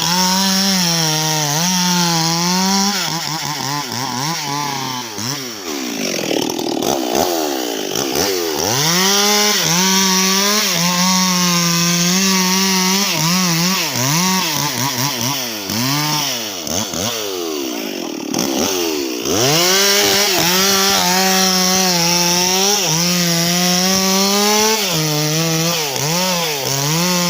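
Stihl MS 261 two-stroke chainsaw running at high revs, its pitch wavering. Twice the revs fall and climb back in quick swoops as the throttle is eased and opened again.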